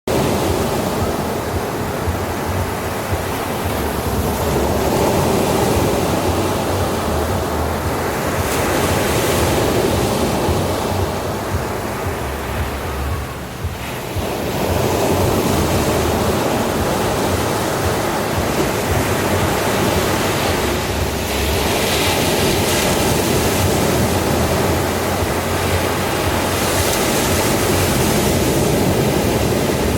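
Sea waves washing onto a beach: a continuous surf that swells and ebbs, with breakers surging several times and a brief lull about halfway through.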